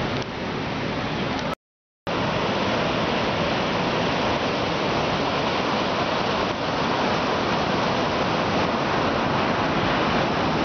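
Ocean surf breaking on a sandy beach: a steady, dense rush of crashing waves. The sound cuts out completely for about half a second near the start, then resumes.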